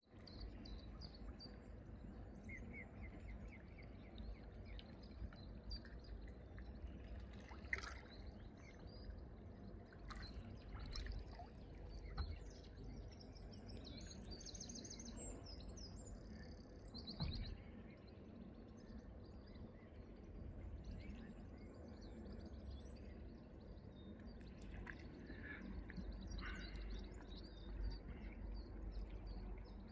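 Faint outdoor ambience of small songbirds chirping and trilling, over a steady low rumble, with a few soft clicks.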